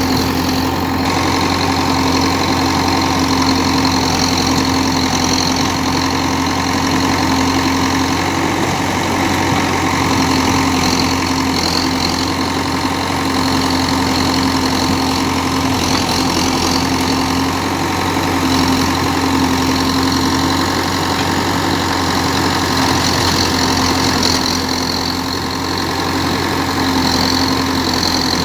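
Diesel engine of a JCB backhoe loader running steadily, its pitch wavering slightly now and then.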